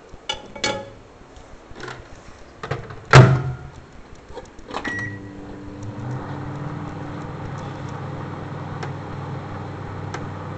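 Microwave oven door shut with a loud knock about three seconds in, a short beep, then the oven starts up and runs with a steady low hum.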